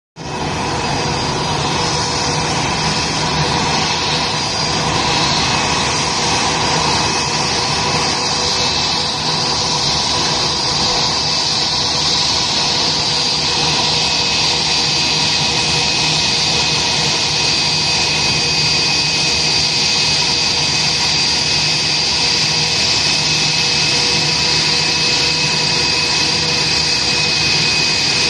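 Turbofan engines of a twin-engine jet airliner running at taxi idle as the aircraft rolls slowly in to park: a steady whine made of several high, unchanging tones over a rushing hiss.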